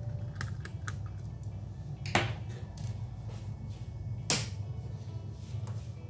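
Sharp clicks and ticks from a pry tool working a laptop's battery cable connector loose: two loud clicks about two seconds apart, with a few softer ticks around them.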